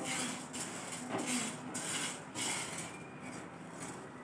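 Dry sabudana (tapioca pearls) being dry-roasted in a nonstick frying pan and stirred with a silicone spatula: the pearls shift and scrape against the pan with each stroke, about two strokes a second, easing off after about three seconds.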